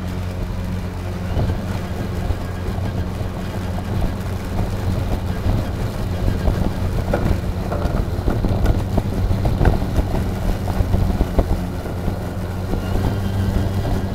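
EGO Power+ LM2135SP 56 V battery self-propelled lawn mower running under load, its electric motor and spinning blade giving a steady hum as it cuts grass. Short sharp ticks and knocks come and go around the middle.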